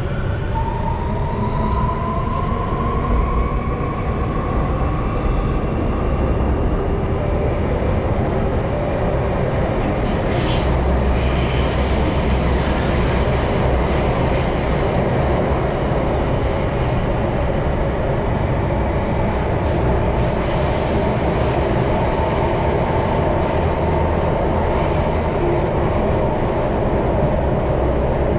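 Singapore MRT electric train pulling out of a station and running through the tunnel, heard from inside the carriage. In the first few seconds the motors give an electric whine that rises in pitch as the train picks up speed. The rest is a steady rumble of wheels on rails, with a louder rushing noise from about ten seconds in.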